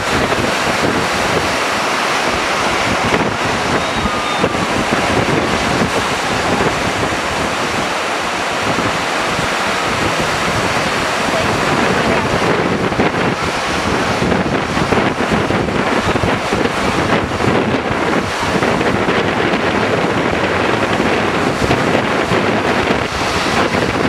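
Ocean surf breaking and washing in a steady, loud rush, with wind buffeting the microphone.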